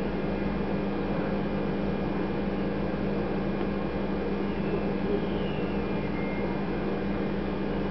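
Steady low electrical hum over a faint hiss: room tone.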